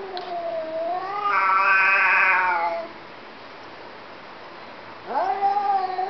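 Cats in a face-off yowling: one long, wavering yowl lasting nearly three seconds and loudest in its middle, then after a pause another yowl rising in pitch near the end. Drawn-out yowling of this kind is a cat's warning threat in a standoff.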